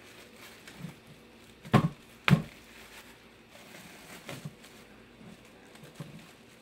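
Plastic bubble wrap being gathered up and crumpled by a gloved hand: faint rustling, with two sharp snaps about half a second apart near two seconds in.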